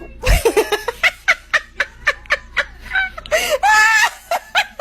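A person laughing hard in a quick run of breathy bursts, about four or five a second, with a longer drawn-out laugh near the end.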